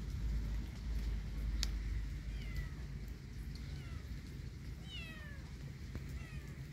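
Kitten meowing: a run of short, high, downward-sliding mews about once a second, over a low background rumble, with one sharp click a little under two seconds in.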